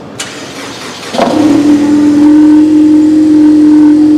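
Ford Mustang EcoBoost's 2.3-litre turbocharged inline-four starting up through its exhaust. A click and about a second of cranking come first, then the engine catches with a brief rev and settles into a loud, steady idle.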